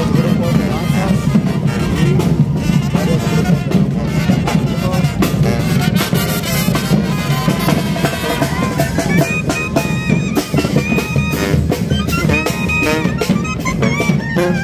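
Live band music with brass and drums playing a steady beat, high held notes coming in during the second half.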